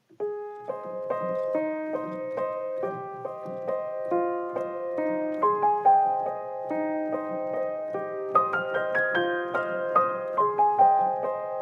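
Background piano music: a gentle melody of single notes over a repeating accompaniment, starting at once.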